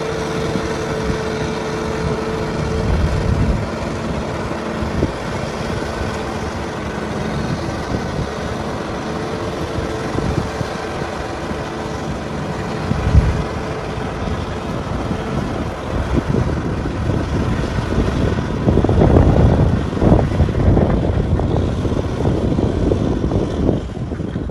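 Kubota farm tractor's diesel engine running steadily under load as it pulls a rotary tiller through flooded paddy mud. A louder rush of noise comes about three quarters of the way through.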